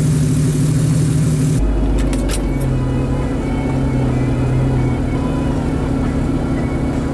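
Vehicle engine running steadily while driving, a continuous hum that shifts in pitch a few times, with a deep low rumble from about a second and a half in.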